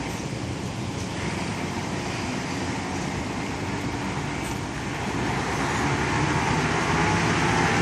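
Crane truck engine running steadily, growing louder about five seconds in.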